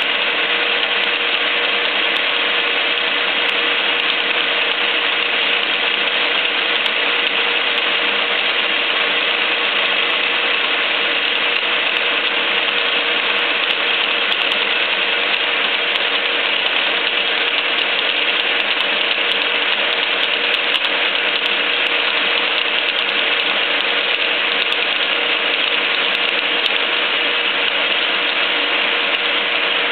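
Sandvik face mill cutting SAE 1045 steel on a Biernatzki milling machine: a steady, dense machining noise with one steady tone running through it.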